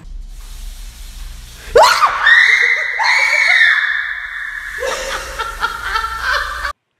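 A woman's sudden, loud, high-pitched scream of fright about two seconds in, held for about three seconds, then breaking into shorter shrieks that die away. A low hum runs underneath.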